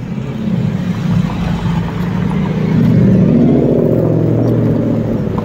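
A passing car's engine heard close by, its hum rising in pitch and loudest about three seconds in, over road noise.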